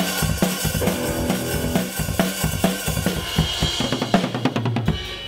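Rock band playing: drum kit with bass drum, snare and cymbals under electric guitars. Near the end comes a quick run of drum hits, then the playing drops off.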